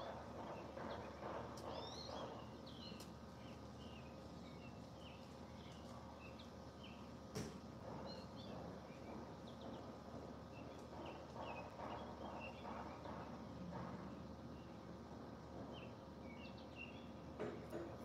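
Faint, short bird chirps scattered all through, over a faint steady outdoor hum, with one sharp click about seven seconds in.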